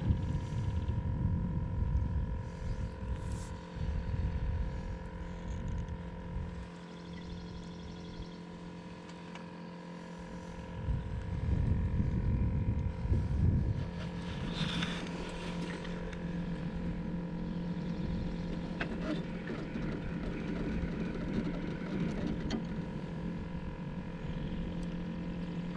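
A boat motor humming steadily, with a low rumbling swell of noise about eleven seconds in.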